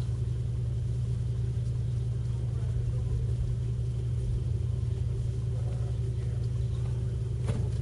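Steady low hum of a car's engine idling, heard from inside the cabin, with one sharp click near the end.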